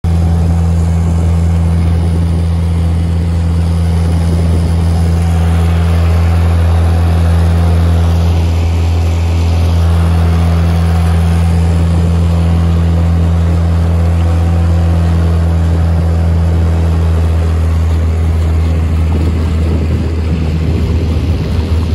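A small boat's engine running steadily at speed, a constant low drone, with water rushing along the hull. Near the end the drone turns less even as the boat slows.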